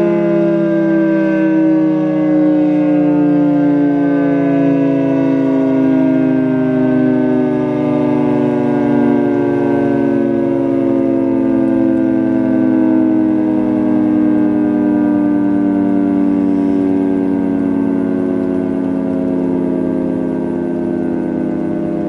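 Federal Signal 2T22A dual-tone outdoor warning siren sounding its steady Alert signal: a loud two-tone chord that slowly slides lower in pitch.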